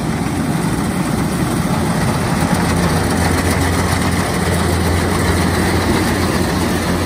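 Kubota DC-93 rice combine harvester's diesel engine and threshing machinery running steadily under load as it cuts rice. It has a low drone that grows louder about halfway through as the machine comes close.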